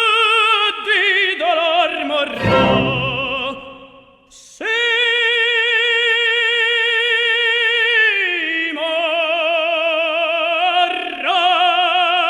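Operatic solo singing with heavy vibrato on long held high notes, breaking off briefly about four seconds in.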